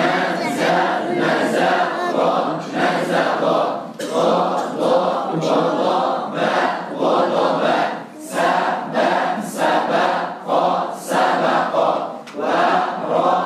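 A group of learners chanting Arabic syllables aloud together in unison, in a steady rhythm: choral reading practice of letters voweled with fathah.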